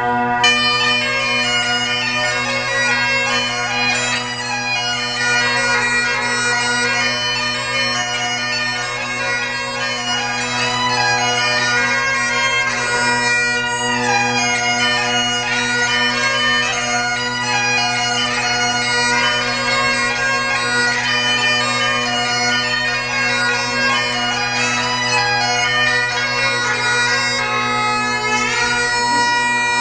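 Scottish bagpipes playing a tune: the chanter's melody over steady, unbroken drones, which stop near the end.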